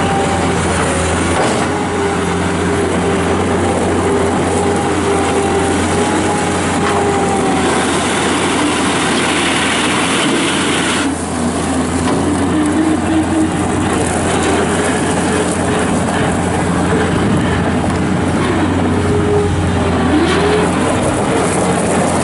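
New Holland LX665 Turbo skid steer loader's diesel engine and hydraulics running hard while the machine works, the pitch rising and falling with engine speed and load.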